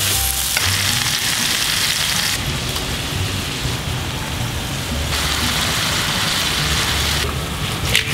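Chopped garlic, onion and vegetables sizzling steadily as they fry in oil in a hot pan.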